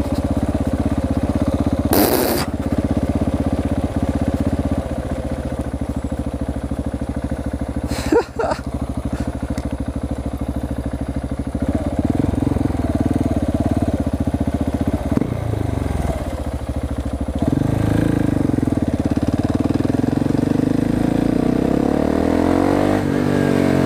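Husqvarna 701 Supermoto's single-cylinder engine being ridden, loud, through an exhaust with its baffle (dB killer) removed. Engine speed changes several times, with rising and falling pitch near the end.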